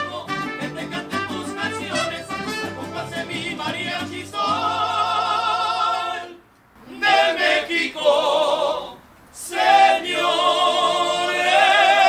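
Latin-style background music with a steady plucked bass line; about four seconds in, a mariachi singer takes over, holding long notes with wide vibrato, broken twice by short pauses.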